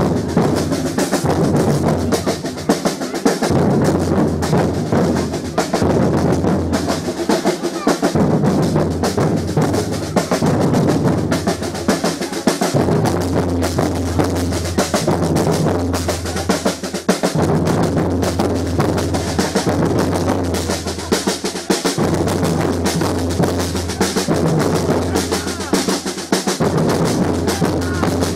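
Batucada drum ensemble playing a driving street rhythm: dense, rapid snare-drum strokes over deep bass drums, loud and continuous.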